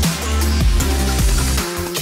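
Electronic background music with a heavy bass line and a steady beat; the bass drops out briefly near the end.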